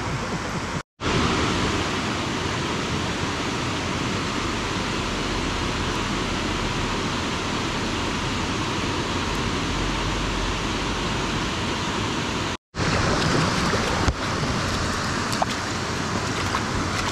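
Steady rush of flowing stream water, cutting out briefly twice.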